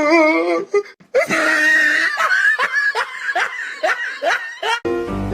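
A person laughing hard and uncontrollably, loud high-pitched laughter in rapid breathy pulses. Background music cuts in near the end.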